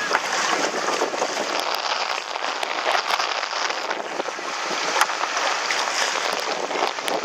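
Water splashing and sloshing against a windsurf board in shallow water, with strong wind hissing on the microphone.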